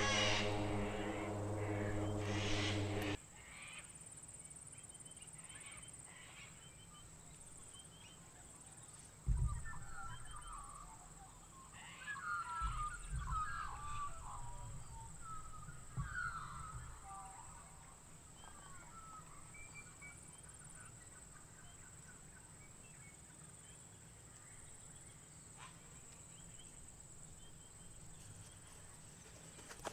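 Quiet bush ambience with birds calling for several seconds near the middle, over a steady faint high hiss. A droning music tone at the start cuts off after about three seconds.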